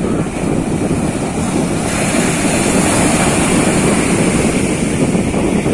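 Ocean surf breaking and washing in, with wind buffeting the microphone; the hiss of the surf grows louder about two seconds in.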